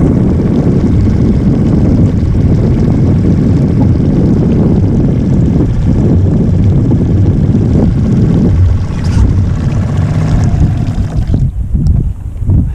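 Small outboard motor running steadily as a dinghy crosses the water, with wind buffeting the microphone; the motor's sound drops away near the end as it is throttled back.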